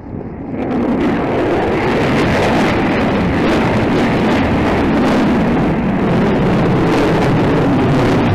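Loud jet noise from an F/A-18 Super Hornet's twin engines as the jet flies past. It swells sharply about a second in, then holds as a steady roar.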